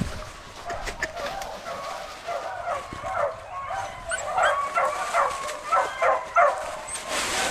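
Beagles yipping and whining in short, repeated high cries that come thick and fast in the second half. A thump sounds at the very start.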